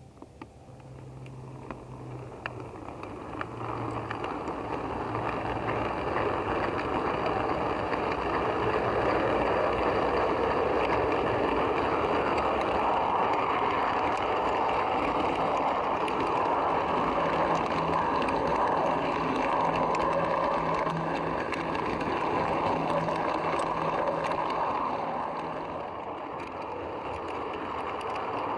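Model train running on its track, heard from a camera aboard one of the coaches: a steady rumble of wheels and running gear. It builds up over the first few seconds as the train pulls away from the platform, then holds steady.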